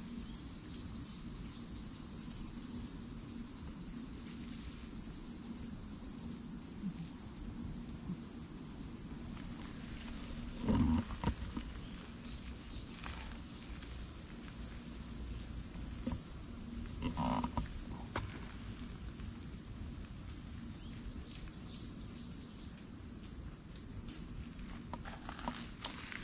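Steady high-pitched drone of a summer insect chorus, with two short low animal calls about eleven and seventeen seconds in.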